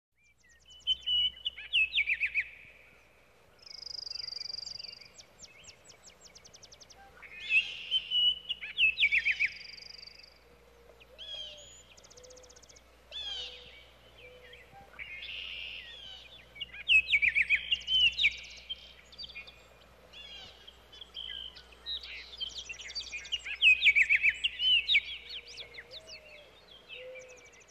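Songbirds singing: chirps, quick trills and whistled phrases from more than one bird, coming in short phrases with brief pauses between them.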